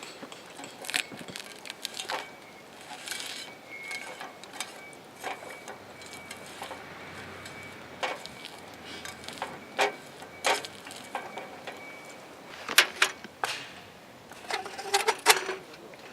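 Irregular clicks, clacks and light clinks of small hard objects being handled, loudest in a cluster near the end, with a faint steady high whistle-like tone through the middle.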